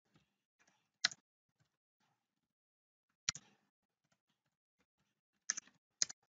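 Keystrokes on a computer keyboard, typing a line of text: faint, irregular clicks, with a few louder key strikes about a second in, just after three seconds, and twice near the end.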